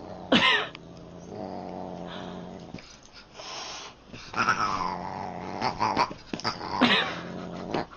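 A Siamese cat and a dog play-fighting: long stretches of low, steady growling, with a sharp high cry about half a second in and another near the end.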